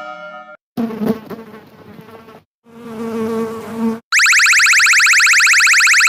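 A fly buzzing in two bursts with short gaps, then about four seconds in a loud, shrill electronic tone that sweeps over and over very rapidly.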